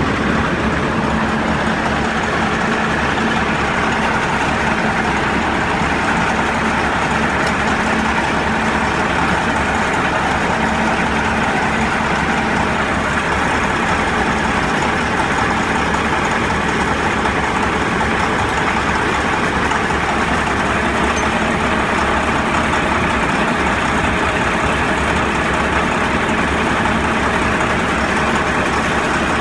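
Bulldozer's diesel engine running steadily, with no change in speed. A faint steady tone in the engine noise fades out about nine seconds in.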